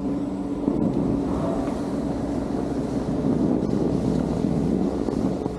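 Snowboard sliding over packed snow, with wind noise on a helmet-mounted camera's microphone: a steady noise that stays even throughout.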